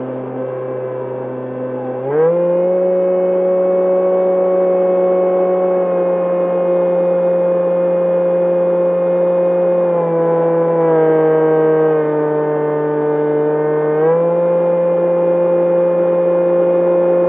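E-flite Opterra flying wing's electric motor and propeller whining steadily in flight. The pitch jumps up sharply about two seconds in, dips slightly around ten seconds, and rises again around fourteen seconds.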